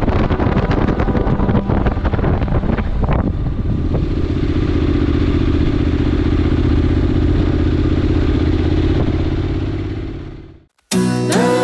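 Motorcycle engine running steadily while riding, with wind buffeting the microphone over the first few seconds. Near the end it fades out, and acoustic guitar music begins.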